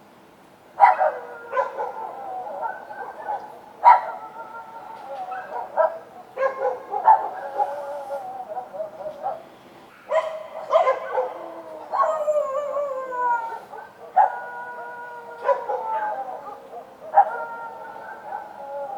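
Several street dogs barking and howling, with overlapping voices. About a dozen sharp barks, each running on into a drawn-out howling note.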